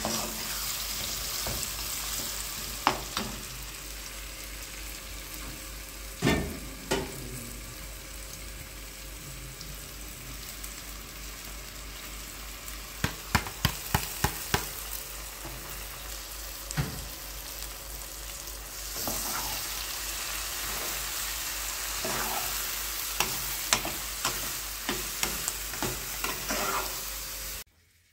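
Steady sizzling hiss with scattered sharp clicks and knocks, including a quick run of them about halfway through. The hiss grows louder about two-thirds of the way in, then cuts off suddenly near the end.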